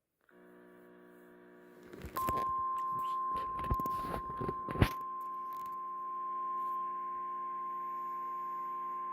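NOAA Weather Radio 1050 Hz warning alarm tone, a single steady high tone that starts about two seconds in and holds. It heralds a tornado warning. Before and under it is a faint radio-reception hum, and a few clicks and crackles come in the first seconds of the tone.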